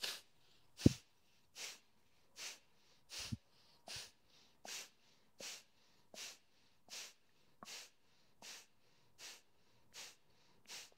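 A woman breathing with short, forceful exhales through the nose, about one every three-quarters of a second, each exhale pushed out by pulling the navel in while the belly relaxes on the inhale. There is a low thump about a second in.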